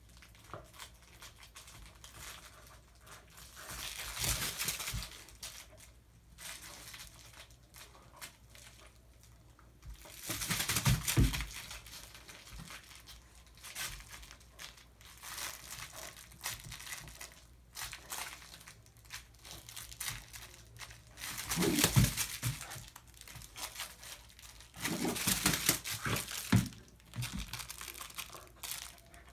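Dog chewing and tearing at a toy, making crinkling, crackling noises in irregular bouts, the loudest about a third and three-quarters of the way through.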